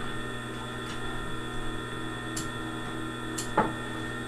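Steady hum of an industrial sewing machine's motor running without stitching, with a few light ticks of handling and one sharper snip of scissors near the end.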